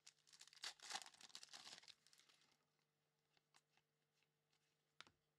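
Foil trading-card pack being torn open and crinkled, a dense burst of tearing over the first couple of seconds. Then come faint clicks as the cards are fanned through, and one sharp tick near the end.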